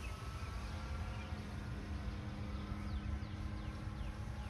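Electric motor and propeller of a 1/6-scale balsa RC biplane in flight, a steady distant hum over a low rumble.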